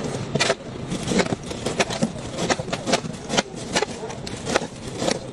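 A large kitchen knife slicing the rind off a whole pineapple in repeated downward strokes, with sharp, irregular knocks on the cutting board about two or three times a second. Steady low background noise runs underneath.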